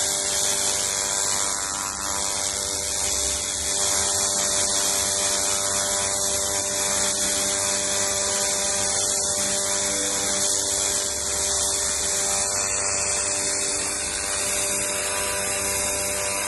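50 W pulsed fiber laser cleaner ablating paint and oily grime off an engine's valve cover: a steady, high hiss with a steady hum of several tones beneath it.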